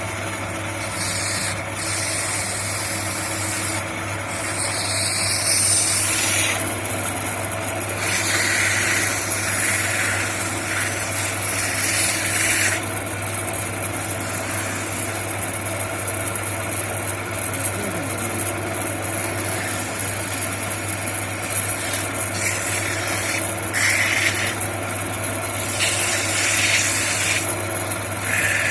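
Homemade wood copying lathe running: a steady motor hum under irregular rasping, scraping bursts as the wood is cut and abraded. The bursts come and go, some lasting several seconds.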